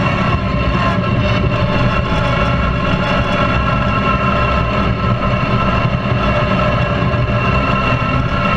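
Lawn tractor's small gasoline engine running steadily at a constant pitch while the tractor drives along.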